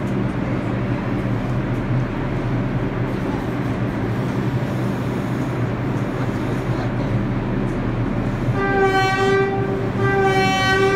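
New York City subway train standing at the platform with a steady hum, then its horn sounding two long blasts near the end.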